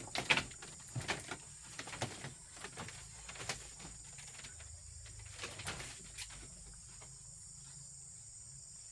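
Scattered light knocks and clicks, most of them in the first few seconds and a few more about six seconds in, then a faint steady hiss.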